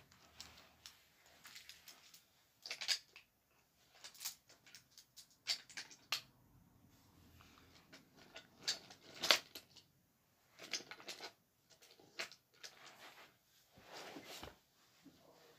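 Irregular soft clicks and rustles of wooden toy trains and wooden track being handled and pushed about on carpet.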